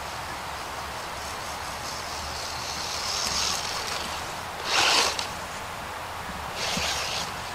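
DEERC 300e 1/18-scale brushless RC monster truck driving, its motor and drivetrain running with a high whine that rises and falls with the throttle. There is a sharp loud surge about five seconds in and a shorter one near the end.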